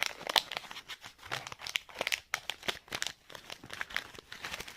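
Foil trading-card packet crinkling and tearing as it is being torn open by hand, a quick irregular run of crackles.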